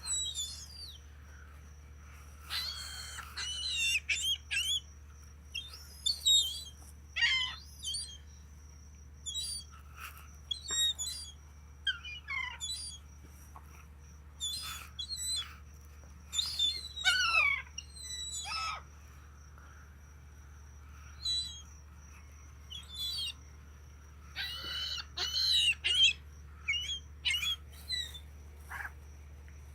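Gulls calling over and over: short calls, many falling in pitch, coming in clusters every second or two with some overlapping. A steady low hum runs underneath.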